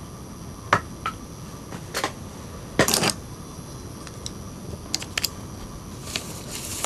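Scattered clicks, taps and light rustles of hands handling small objects and a charger cable on a tabletop, over a steady background hiss. The loudest is a short cluster of clicks about three seconds in, with a brief rustle near the end.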